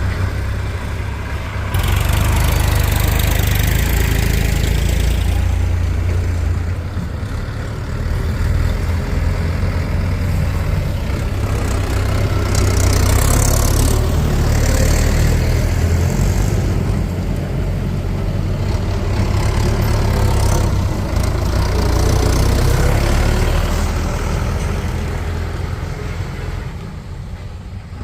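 Heavy diesel engine running, its level rising sharply about two seconds in, then swelling and easing several times before fading near the end.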